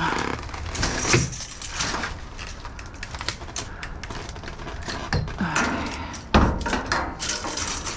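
Scattered knocks, clicks and scrapes of salvaged junk being handled, with one heavy thump about six and a half seconds in.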